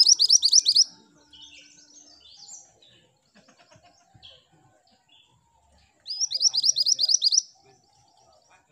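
Minivet ('mantenan gunung') singing: a quick string of about nine sharp, high, rising notes lasting a little over a second, repeated about six seconds in, with soft scattered chirps between.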